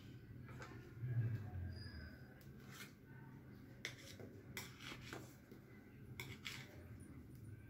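Faint handling sounds from a steel pan of dhokla: a handful of soft, scattered clicks and light scrapes as a hand touches and lifts the cut pieces, over a steady low hum.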